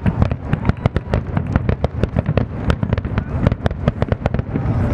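Fireworks barrage: a rapid, dense string of aerial shell bangs and cracks, several a second, over a steady low rumble.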